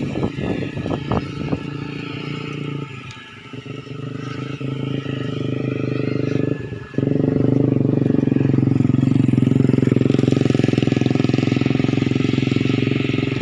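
An engine running close by, a steady pulsing drone that jumps louder about seven seconds in and holds. A few sharp knocks sound near the start.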